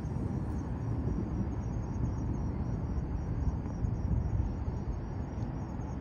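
Crickets chirping in quick, even pulses, high-pitched, over a steady low rumble.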